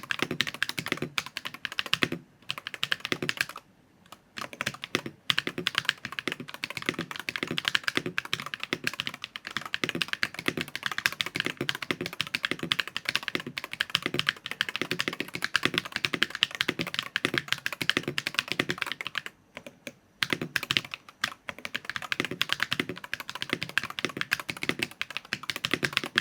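Fast typing on a Luminkey HE Magger 68 Hall-effect mechanical keyboard with Gateron Magnetic White Pro magnetic switches: a dense run of keystroke clacks with short pauses, a balanced sound the typist puts in the "clack" category.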